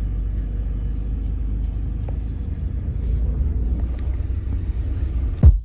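Steady low rumble of a car driving along a road. Near the end a loud drum hit cuts in as music begins.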